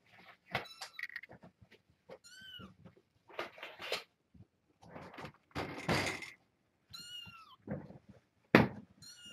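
Young kittens, about three and a half weeks old, mewing several times in high, falling cries, between bouts of scraping and rustling. A loud thump comes near the end.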